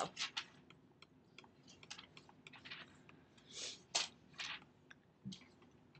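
Stylus tapping and scratching on a tablet surface during handwriting: a string of faint, irregular clicks with a short scratchy stroke a little past halfway.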